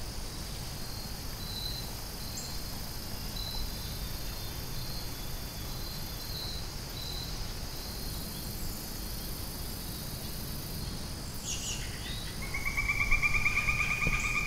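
Insects chirping in the woods: a short high chirp repeating about twice a second over a steady high hiss, with a low rumble underneath. Near the end a rapid pulsing trill starts up and runs for about two and a half seconds.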